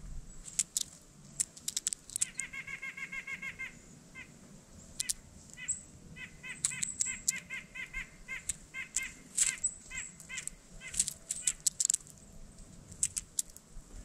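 Blue jay picking through mixed seed on a mesh platform feeder: sharp, irregular clicks and pecks, the loudest sounds throughout. A bird calls in a rapid run of short notes about two seconds in, and again on and off from about five to eleven seconds.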